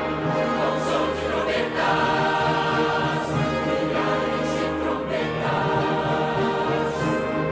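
A choir singing a sacred hymn in sustained chords.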